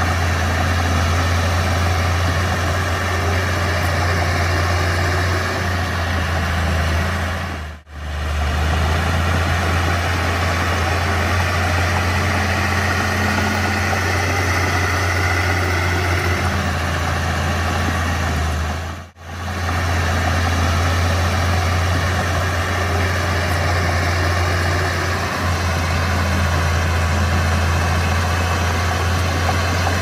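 Komatsu D31P crawler bulldozer's diesel engine running steadily with a low drone. The sound drops out for an instant twice, about 8 and 19 seconds in.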